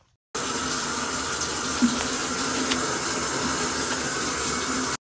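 Running water pouring steadily, as from a tap, starting suddenly and cutting off abruptly near the end, with one brief tick about two seconds in.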